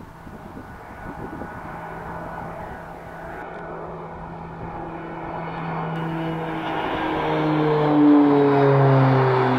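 Twin-turboprop Beechcraft King Air passing low overhead, its propeller and engine drone growing steadily louder and peaking near the end, where the pitch drops as it goes by.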